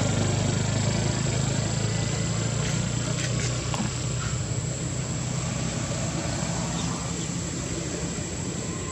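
A low, steady engine hum, slowly fading, with a few faint clicks over it.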